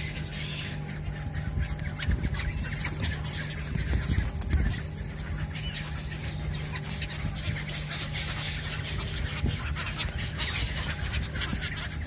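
Calls from a large flock of gulls and pigeons, with short sharp flutters and scuffles among the birds, over a steady low hum.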